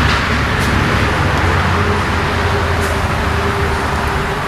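Steady machine hum with a rushing noise, with a faint steady whine joining about two seconds in.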